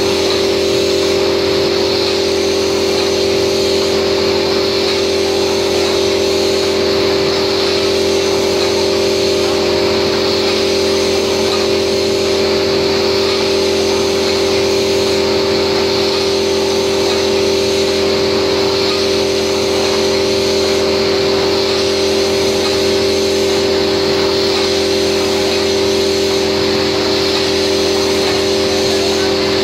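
Ten-station paper collating machine running: a steady mechanical hum with several constant tones and a hiss of air as its feeders lift sheets from each station.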